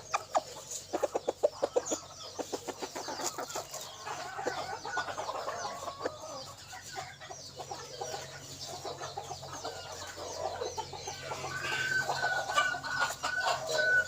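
A decoy hen clucking in quick runs of short notes, calling on steadily, then giving a longer drawn-out call near the end. Small birds chirp thinly throughout.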